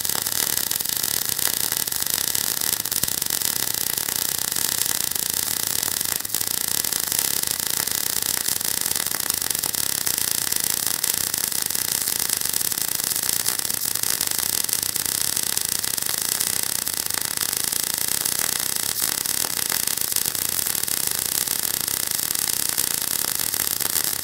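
Semi-automatic MIG/MAG welding arc, a steady dense crackle, as a continuous bead is laid with the torch angled forward (pushed).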